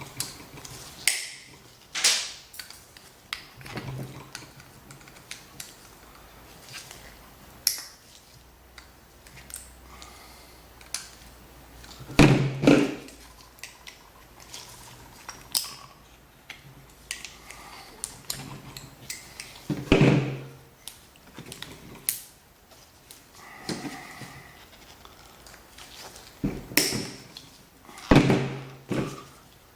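Metal tools and parts being handled on a workbench: scattered light clicks and clinks, with a few louder knocks spaced several seconds apart.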